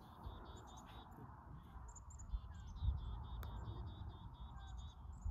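Small birds chirping in quick repeated short notes, over a low rumble, with a single faint sharp click about three and a half seconds in.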